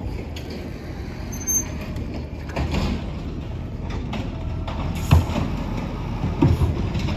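Low, steady rumble of wind and handling noise on a handheld phone microphone carried while walking, with a couple of dull thumps about five seconds in and again a second or so later.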